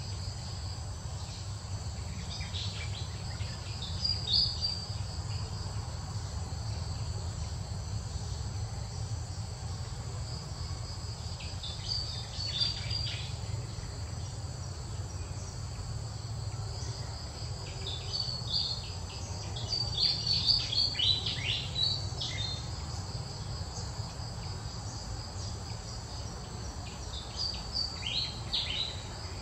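Steady high-pitched drone of insects, with clusters of short, high chirps breaking in four times.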